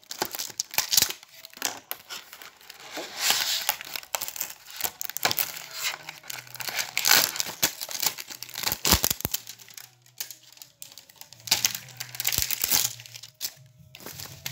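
Clear plastic packaging of a small tape dispenser crinkling and tearing as it is unwrapped by hand, in irregular crackly bursts with scattered sharp clicks, quieter in the last few seconds.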